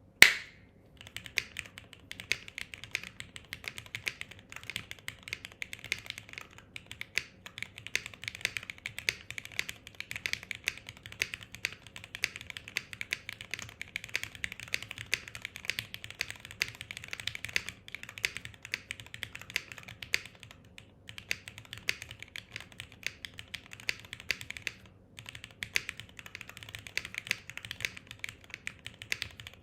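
Mechanical computer keyboard being typed on in a fast, continuous stream of key clicks, with a couple of short pauses, its case without any dampening foam.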